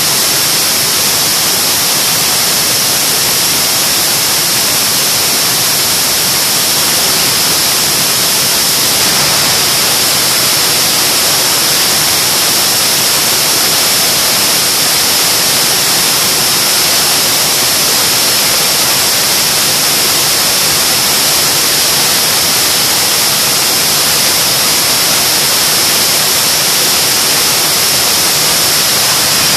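General Electric J79 axial-flow turbojet running on a test stand: a loud, steady jet roar with a high whine over it.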